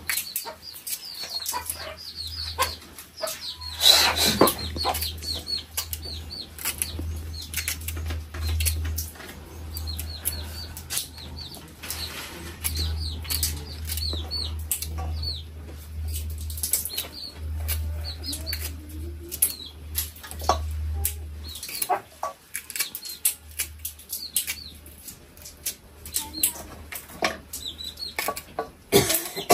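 Chickens cheeping and peeping repeatedly, with a louder burst of rustling about four seconds in. Light clicks of a knife cutting okra over a steel bowl run underneath.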